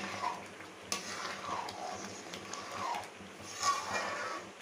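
A metal ladle stirring thick, sticky akkara vadisal in a heavy metal pan: repeated scraping strokes under a second apart, with a few sharp clicks of the ladle against the pan.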